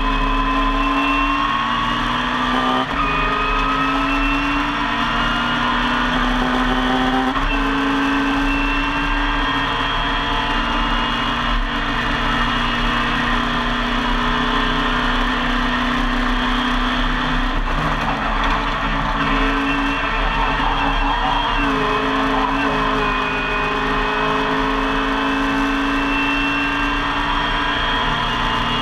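Race-tuned BMC A-series four-cylinder engine of a classic Mini race car heard from inside the cabin at full throttle, its note climbing steadily and dropping back at several gear changes.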